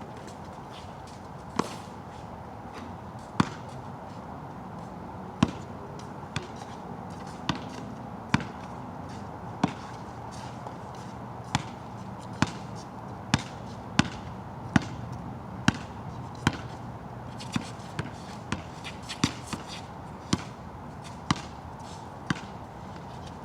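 A basketball being dribbled on a wet court: about twenty sharp bounces, roughly a second apart and coming quicker in the second half, over a steady hiss of rain.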